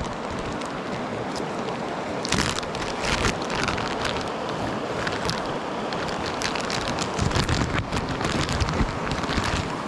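Mountain stream rushing steadily, with scattered knocks and rustles close to the microphone.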